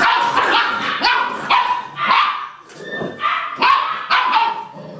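Eight-week-old puppies barking and yapping as they squabble over a bone: a string of short, high-pitched barks, about two a second.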